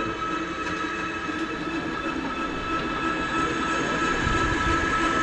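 ICON Vulcan 3D construction printer running: a steady high machine whine over a low rumble, growing a little louder near the end.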